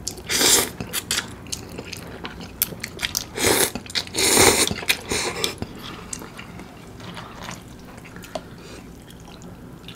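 Soupy curry instant noodles being slurped in loud wet rushes, once about half a second in and twice more around three and a half to five seconds in, with chewing and soft clicks between.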